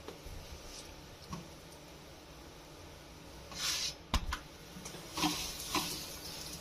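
Stuffed paratha frying on a hot iron tawa with a faint sizzle. A short hiss and a sharp knock of a utensil on the tawa come about four seconds in as it is turned, then louder sizzling with small crackles near the end as ghee goes onto the hot paratha.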